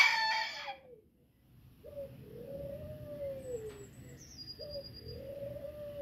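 The last part of a booted bantam rooster's crow, trailing off and falling in pitch within the first second. After a short pause, a low, smooth cooing call rises and falls twice, each about two seconds long.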